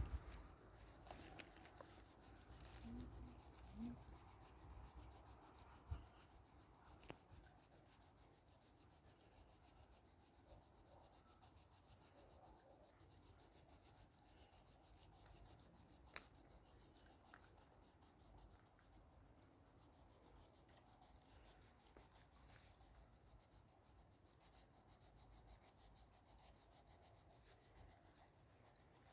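Faint scratching and rubbing of a drawing tool on paper as a picture is drawn, with a few light clicks in the first several seconds and one about halfway through.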